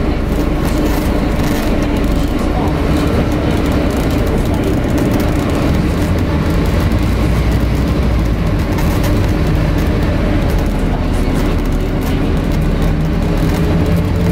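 Inside a Scania N250UD Enviro 400 MMC double-decker bus on the move: the engine and ZF automatic gearbox run under the steady noise of the air-conditioning unit, which largely covers the engine. A faint rising whine comes in near the end.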